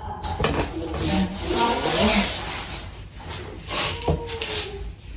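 Bamboo parts of an IKEA Nesna side table being handled, with plastic wrap rustling and a few light wooden knocks.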